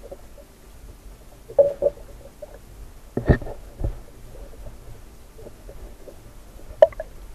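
A few muffled knocks and thumps over a low steady rumble: two close together early, the loudest pair about three to four seconds in, and one sharp knock near the end.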